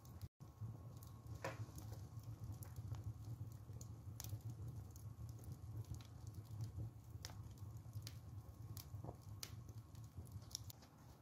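Fire crackling in a stove's firebox around burning bundles of Thursday salt: scattered sharp pops and ticks over a low steady rumble, with a brief silent gap near the start.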